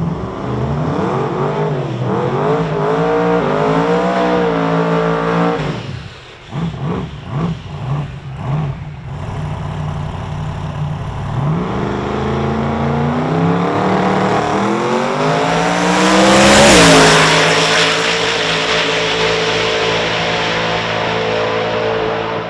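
Twin-turbo 454-cubic-inch V8 of a Holden Monaro drag car revving at the start line. For a few seconds the revs come in short, broken bursts. The revs then climb to a loud peak about 16 seconds in, with a burst of hiss, and the engine holds a steady note after that.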